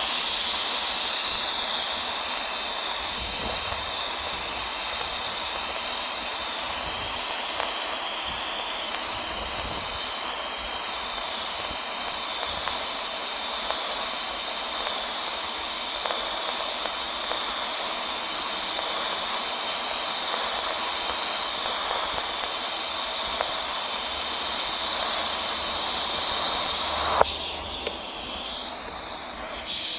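TIG (argon) welding arc on a steel pipe joint, giving a steady hiss. Near the end there is a single sharp click, after which the sound drops a little.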